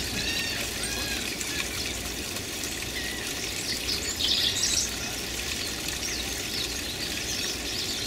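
Birds chirping and calling: a few short, curved notes in the first second and a half and a brief burst of higher notes about four seconds in, over the steady trickle of water running through a small rocky pool.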